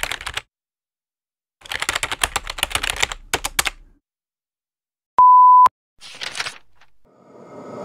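Rapid clicking like typing on a computer keyboard in two spurts, then a loud, steady half-second beep about five seconds in, the loudest sound here. A short hiss follows, and music begins to swell near the end.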